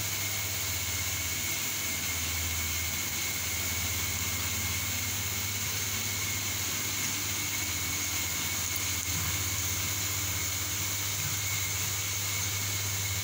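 Steady machine hum and hiss with a thin, high, constant whine, unchanging throughout.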